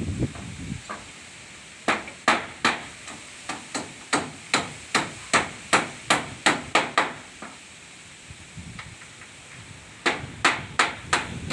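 A run of sharp knocks, about two or three a second, that stops for a few seconds and starts again near the end.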